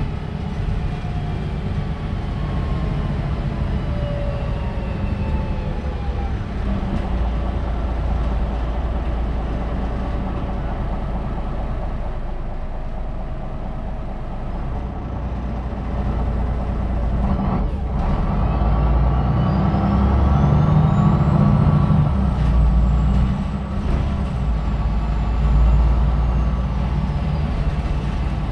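MAN NL313 city bus's diesel engine running steadily. It grows louder after about sixteen seconds, with a whine that climbs in pitch and then holds, and there is a short sharp click just before.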